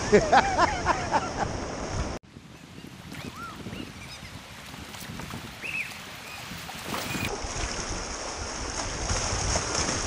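River water rushing around a kayak running light rapids. About two seconds in it cuts abruptly to a much softer flow of current, and the rush of rapids comes back from about seven seconds.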